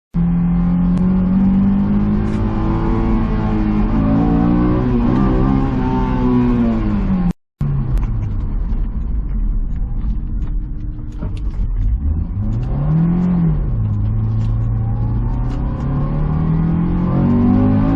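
Honda S2000's four-cylinder engine running while driving, its pitch rising and falling with acceleration and gear changes, including one quick rev up and back down about two-thirds of the way through. The sound cuts out briefly about halfway.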